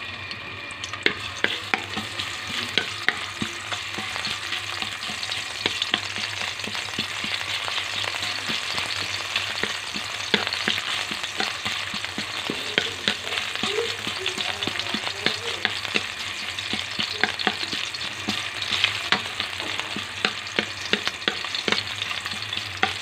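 Ginger strips sizzling in hot oil in a metal pan, stirred with a wooden spatula that scrapes and knocks against the pan in frequent sharp clicks over a steady hiss.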